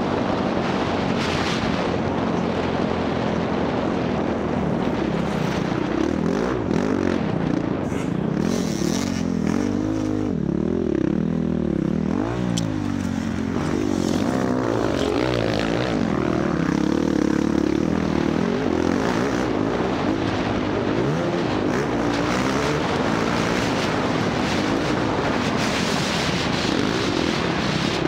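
Dirt bike engine running hard while being ridden, its pitch rising and falling again and again with the throttle.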